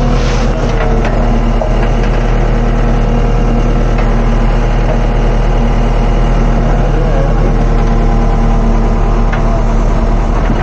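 JCB backhoe loader's diesel engine running steadily, heard from inside the cab while the backhoe arm is worked.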